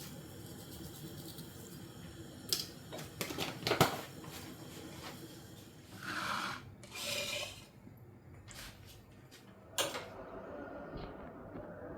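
Quiet handling sounds in a small room: a cluster of sharp clicks and knocks a few seconds in, two short rustling hisses around the middle, and a few more clicks near the end.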